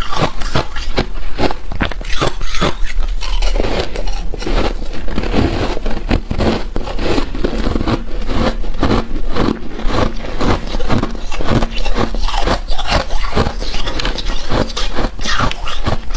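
Freezer frost being scraped and crunched close to the microphone: a continuous, rapid run of crisp, squeaky crunches and scrapes.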